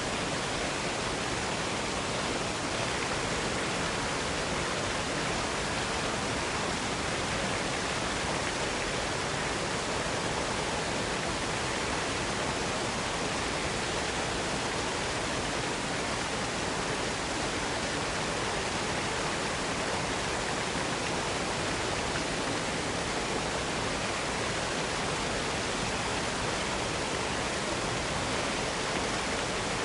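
Waterfall rushing, a steady even hiss that does not change.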